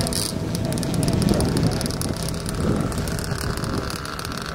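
Wind buffeting the microphone as a rough, steady rumble, with faint voices of onlookers underneath.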